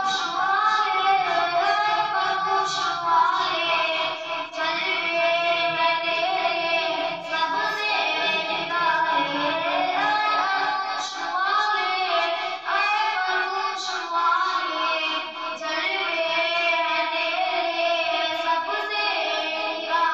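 A boy singing a naat, an Islamic devotional song in praise of the Prophet, unaccompanied through a microphone in long, gliding melodic phrases with short breaths between them.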